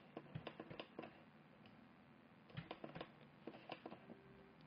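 Faint clicking of a computer keyboard and mouse in two short flurries, one right at the start and another a little past the middle, over quiet room hiss.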